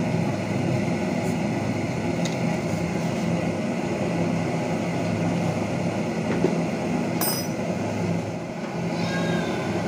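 A steady mechanical hum with hiss, holding an even level throughout, with a faint tick about two seconds in and a sharper clink about seven seconds in.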